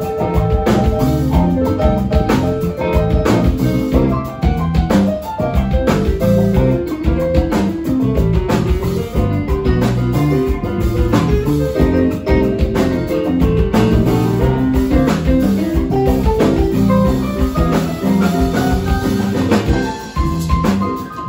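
Live blues band playing a number: drum kit, bass guitar and keyboard with saxophone, loud and without a break.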